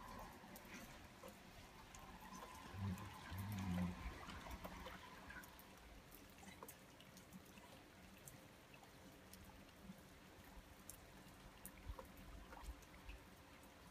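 Faint trickle of flowing hot-spring water with scattered light drips. A couple of low muffled bumps about three to four seconds in.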